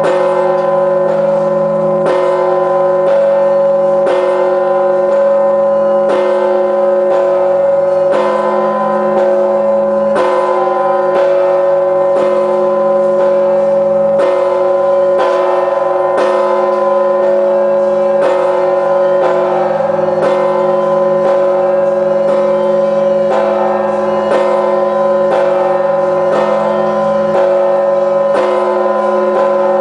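A very large 7,150 kg church bell tolling at a slow, even tempo of about one strike a second. Each stroke lands on the unbroken hum and overtones of the ones before.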